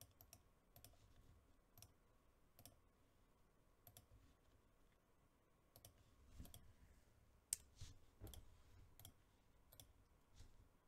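Faint, irregular clicking of a computer mouse, about a dozen clicks, with a couple of soft low thumps in the second half.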